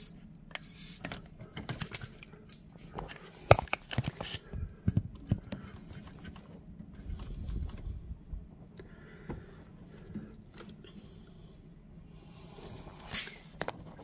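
Handling noise around a furnace gas valve: scattered clicks, taps and scrapes, with a few sharper knocks about three and a half to five seconds in and a brief hiss near the end.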